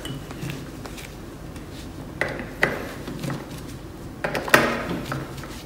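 Screwdriver tightening the Torx screws on a Compak PKE coffee grinder's upper burr chamber, with a few light clicks and knocks of tool on grinder, the loudest about four and a half seconds in.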